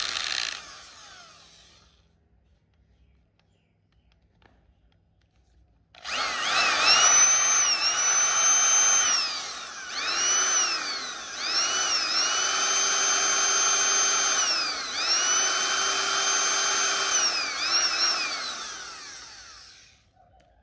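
Corded Makita electric drill with a 10 mm chuck running with no load. A run winds down at the start. After a few seconds of quiet the motor starts again, and its whine rises and falls in pitch several times as the variable-speed trigger is squeezed and eased, holding steady at top speed for stretches before winding down near the end.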